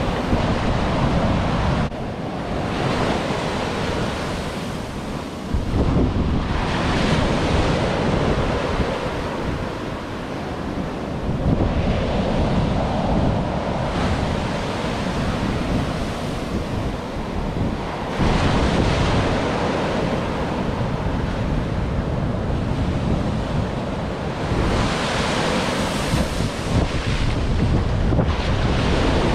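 Ocean surf breaking and washing up the beach, swelling and easing as each wave comes in, with strong wind buffeting the microphone.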